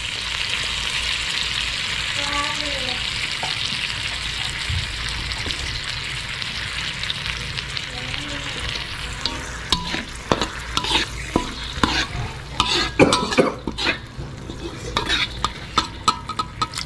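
Coconut milk sizzling in a hot pan of fried spice paste, a steady sizzle that slowly dies down. From about ten seconds in, a metal spatula scrapes and clinks against the pan as it is stirred.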